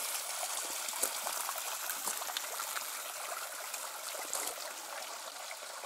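Running water of the Große Ohe stream: a steady rush and trickle that slowly grows fainter.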